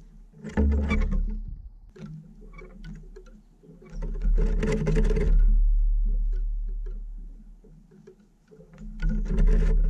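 Eurasian jay feeding on a wooden bird feeder right by the microphone: sharp taps of its bill pecking at seeds and the wooden floor, with three louder bouts of scuffling and thumping as it hops and turns about, about half a second in, around four seconds in and near the end.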